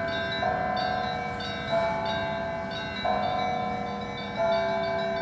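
Church bells ringing, several bells sounding together, with a fresh strike about every second and a quarter over their long ringing hum.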